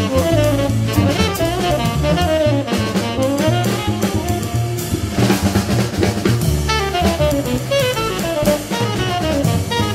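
Jazz trio playing live: saxophone melody lines over upright bass and a busy drum kit, with snare and bass drum hits standing out.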